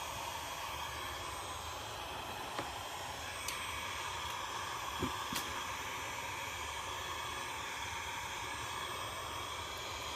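Heat gun blowing steadily on its hottest setting, a constant airy hiss, with a few faint clicks about three to five seconds in.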